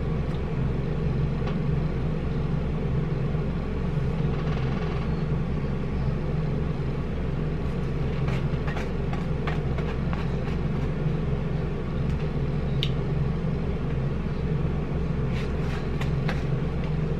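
A steady low rumbling hum runs throughout. Over it are a few light clicks of a metal fork in a takeout food container, about eight seconds in and again near the end.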